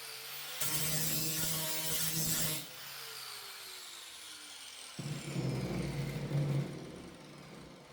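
A handheld power tool working 16-gauge sheet steel, running for about two seconds, then winding down with a falling whine. About five seconds in comes a rougher burst of metal working that fades out.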